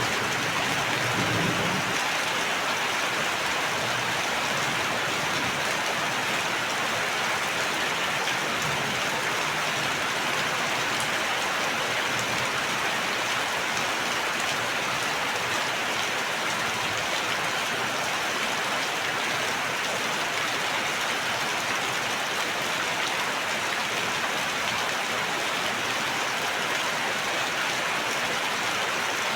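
Steady heavy rainfall, an even hiss of drops hitting surfaces, with a brief low rumble in the first two seconds.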